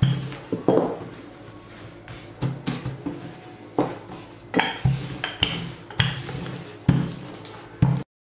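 Wooden rolling pin rolling out dough on a worktop, giving a string of sharp knocks and clatters at uneven intervals as it bumps the surface. The sound cuts off abruptly near the end.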